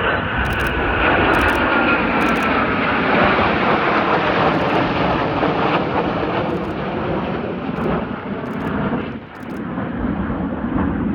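Eurofighter Typhoon fighter jets flying over in formation, their jet engines a loud roar with a whine that falls in pitch over the first few seconds as they pass.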